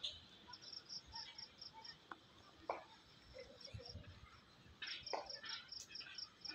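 Crickets chirping faintly in short runs of quick high pulses, with a few brief distant calls in the background.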